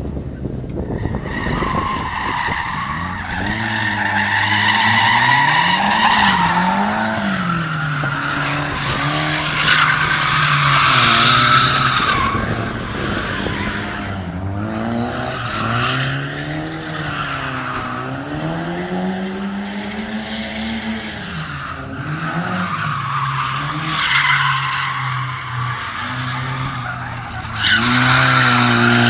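A drifting car's engine revving up and down again and again, with tyre squeal and skidding as it slides around in circles. It is loudest about ten seconds in and again near the end.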